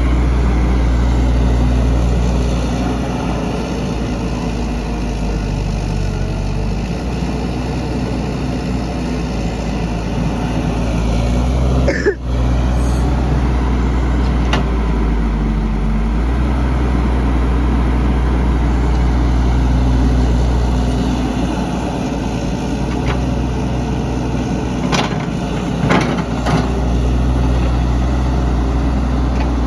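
Heavy diesel engine of earthmoving machinery running steadily, its level rising and falling every few seconds, with a brief break about twelve seconds in and a few sharp knocks near the end.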